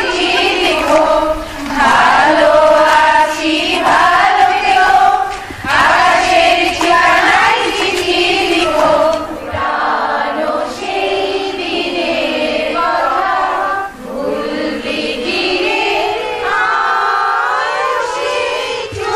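A group of women singing a Bengali song together, many voices on one melody.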